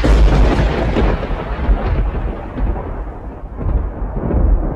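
Thunder-crash sound effect on a lightning logo sting: a sudden crack, then a deep rumble that slowly fades.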